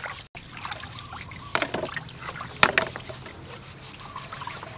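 Water trickling and splashing in a metal basin as freshwater mussels are scrubbed by hand, with two sharp clacks about a second apart, near the middle.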